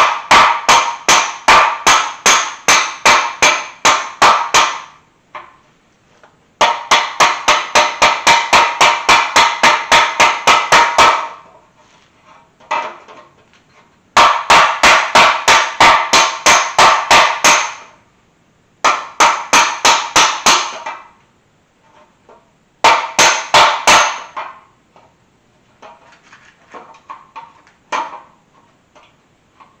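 A hammer repeatedly striking a stamped-steel stock valve cover against a heavy backing, in runs of a few seconds at about four to five blows a second, each blow with a short metallic ring. Fainter taps come near the end. The blows flatten the bolt-hole areas that overtightened bolts had pushed down, so the gasket will be pinched evenly.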